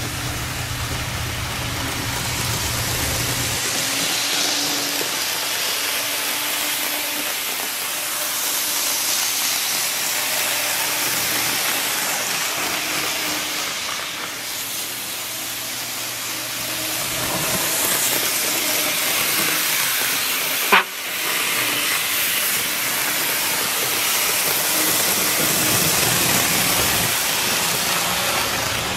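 N-gauge model trains running on a layout: a steady hiss of room noise with a low hum that comes and goes. One sharp click about two-thirds of the way through.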